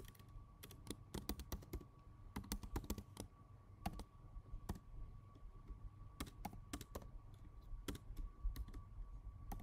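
Computer keyboard being typed on: faint, irregular keystrokes, some single and some in quick runs, with short pauses between as a line of code is entered.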